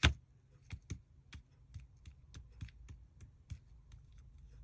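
Light, irregular clicks and taps of paper and card scraps being handled and sorted through, with a sharper knock right at the start.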